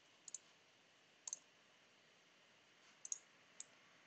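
Faint computer mouse clicks, a few spaced apart with two close together about three seconds in, over near silence.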